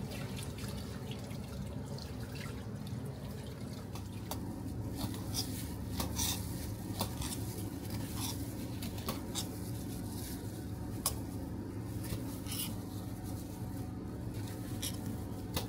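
Working kitchen background: a steady low hum with scattered light clinks and ticks of dishes and utensils.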